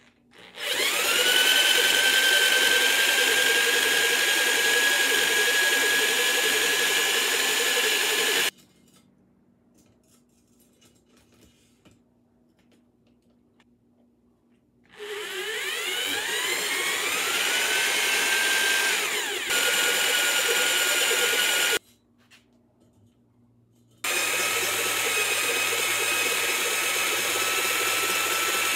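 Electric drill spinning a cylinder hone with modified stones in the bottom of a Mercury 2.5 outboard cylinder bore. It runs three times, each start a rising whine that settles into a steady spin. The first run starts about half a second in and lasts about eight seconds; the second starts about fifteen seconds in and stops about seven seconds later; the third starts near twenty-four seconds and keeps going.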